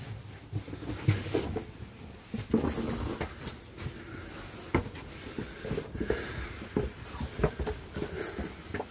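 Footsteps climbing stone stairs: uneven scuffs and knocks about once or twice a second, in a small echoing stairwell.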